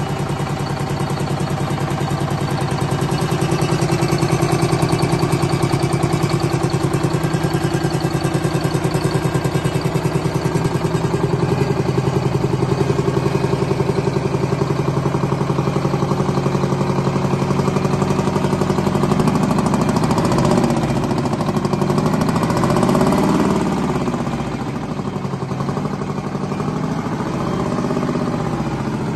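Detroit Diesel 8V92 turbocharged two-stroke V8 diesel engine running on a test stand, with a steady, fast-pulsing idle. Its note wavers up and down for a few seconds about two-thirds of the way through, then settles again.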